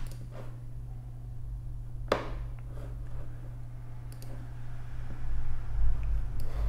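A few sharp clicks of a computer mouse, the loudest about two seconds in, over a steady low hum. A low rumble swells near the end.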